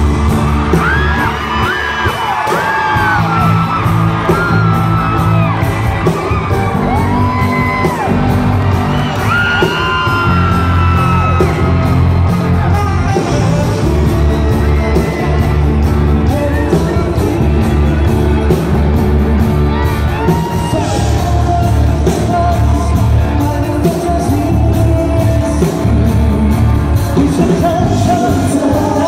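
Live pop concert music in a large hall: an amplified band with a steady, heavy beat and singers on microphones, with audience yells and whoops over it.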